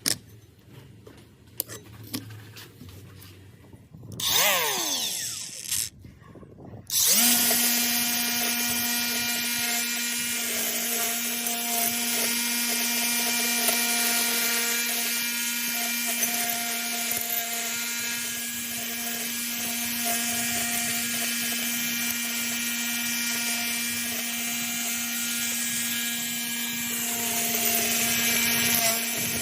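Electric angle grinder with a clamp-mounted attachment on its spindle: after a few faint clicks and a short whirr, it starts about a quarter of the way in and runs at steady full speed with a constant high hum.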